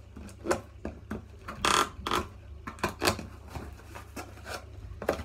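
Cardboard box flaps being pulled open and handled: a string of knocks and scrapes, with a longer rustle about two seconds in.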